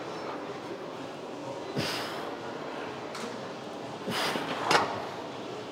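A man breathing out hard, twice, in time with his reps on a cable lat-pulldown machine, with a sharp click near the end of the second breath.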